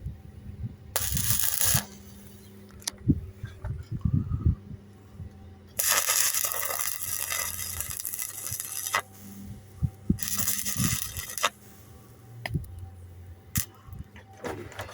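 Welding arc crackling on a boat hull in three bursts, the middle one about three seconds long, with clicks and knocks in between.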